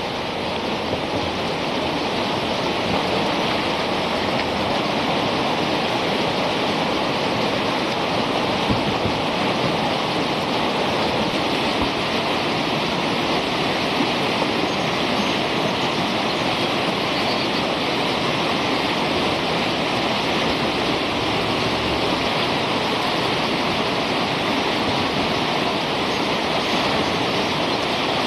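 Whitewater rapids rushing steadily, a loud, constant roar of breaking water.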